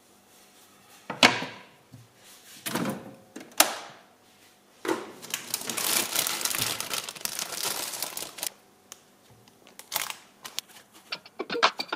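Kitchen handling sounds: a wooden cutting board knocking down onto a glass-ceramic hob, a few sharp knocks, then several seconds of bag crinkling as bread is taken out, and another knock. Music with a quick beat comes in near the end.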